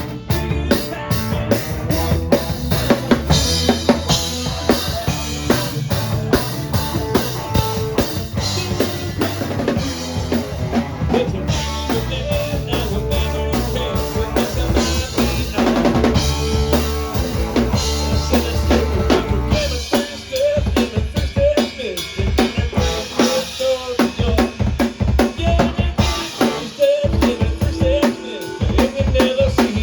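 Live rock band playing with a prominent drum kit, kick and snare driving a steady beat over bass and other instruments. About two-thirds of the way through, the bass drops away and the drums carry on with sparser hits.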